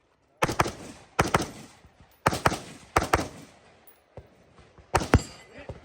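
Rifle shots fired in a string, about one every second, each a sharp crack with a short echo after it.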